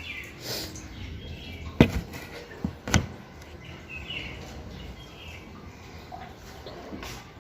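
Two short, sharp sounds about a second apart, with a low, even background around them.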